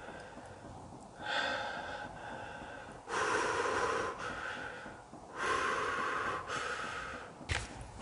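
A person breathing heavily close to the microphone: several long, hissing breaths in and out, with a short knock near the end.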